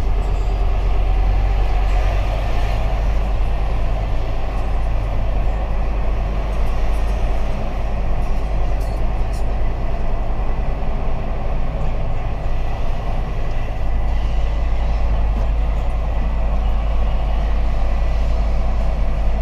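Truck engine running steadily with a low drone and road noise, heard from inside the cab while driving.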